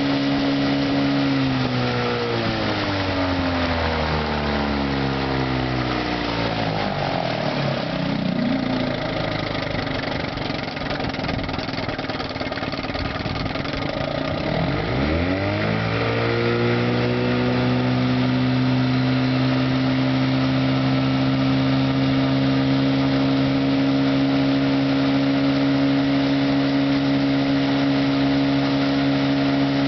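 West Bend Muskie 8 hp outboard motor running at speed, then throttled down over several seconds to a low, rougher speed; about fifteen seconds in it is opened back up, its pitch rising, and it runs steadily at speed again.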